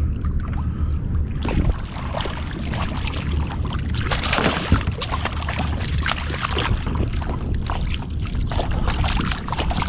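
A hooked mackerel splashing and thrashing at the surface beside a kayak as it is brought alongside and grabbed by hand, with water slapping the hull. The splashing is heaviest about four to five seconds in, over a steady low rumble of wind on the microphone.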